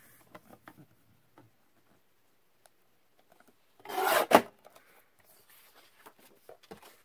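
Paper being slid into a journal pocket to test its fit: one short, loud scraping rub of paper on paper about four seconds in, with faint rustles and small taps of handling around it.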